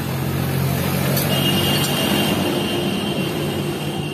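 An engine running steadily with a low hum, and a thin high whine joining about a second and a half in.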